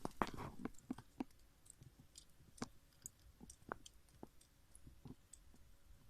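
Faint, irregular clicks and taps, about a dozen short sharp ticks spread over several seconds.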